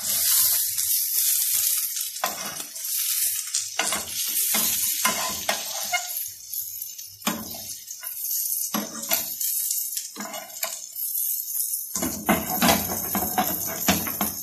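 Onion slices sizzling in hot oil in a frying pan, with repeated clicks and scrapes of tongs against the pan as the slices are lifted out. The sizzle is strongest at the start and thins out, and a busier clatter comes about twelve seconds in.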